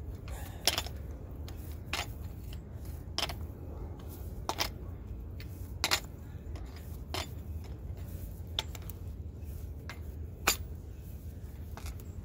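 Grease gun coupler on the grease fitting of a new outer tie rod end, clicking sharply about eight times, roughly once every second and a half, over a steady low rumble.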